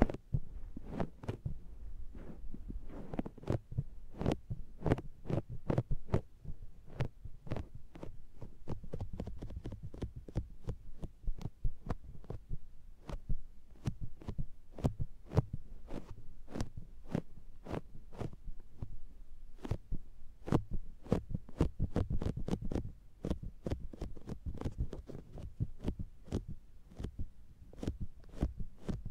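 Makeup sponge patted and pressed against the silicone ear of a binaural microphone, heard right at the ear: a fast run of sticky, suction-like pats and clicks, several a second, over muffled thumps.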